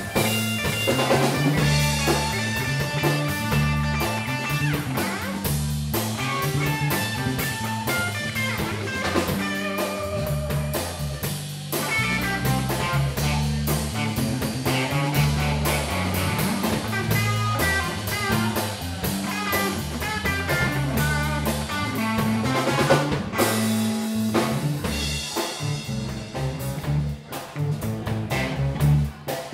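Live blues band playing an instrumental: electric guitar lead over electric bass and a drum kit.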